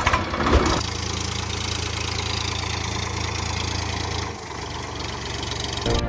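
Tractor engine idling steadily, a dubbed engine sound effect; it settles into the idle about a second in and drops quieter after about four seconds.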